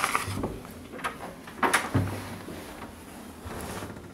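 An interior panelled door being opened by its brass knob, with the latch and door giving sharp clicks and knocks near the start and again about two seconds in.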